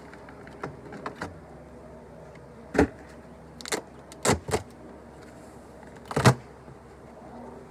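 Wooden beehive being opened: a few sharp knocks and clatters as the lid is lifted off and handled, the loudest about three and six seconds in.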